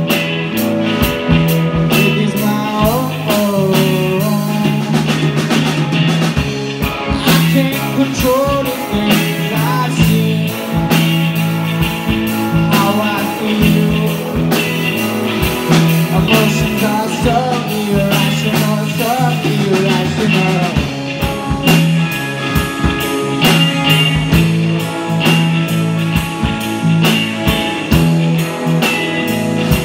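Live rock band playing with amplified electric guitars and a drum kit, a male lead vocal singing over it. About two-thirds of the way through, the singing stops and the guitars and drums carry on.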